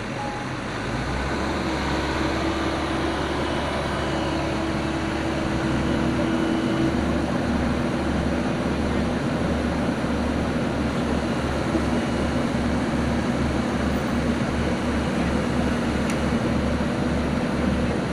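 Diesel engine and hydraulics of a Sany SY75C mini excavator running under load, with a steady hum over a throbbing low rumble. The engine gets louder about a second in, as if throttled up.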